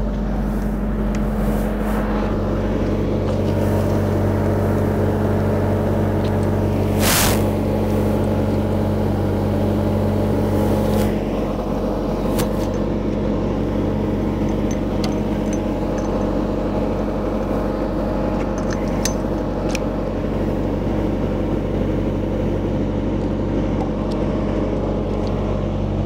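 Bobcat skid steer's diesel engine idling steadily, its note easing slightly about eleven seconds in, with a few short sharp knocks as the backhoe's hydraulic hoses and coupler are handled.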